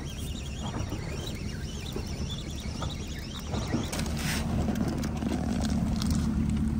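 Boat motor running steadily, a low hum that gets a little louder from about halfway through.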